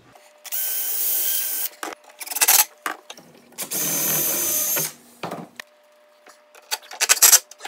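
Power drill run twice, about a second each time, a steady whine, boring a screw hole for a heavy-duty drawer slide. Short knocks and clatters come between the runs and near the end.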